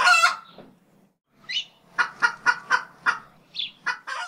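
A bird calling: a run of short, sharp calls about four a second, with a couple of higher chirps among them, cutting off abruptly at the end.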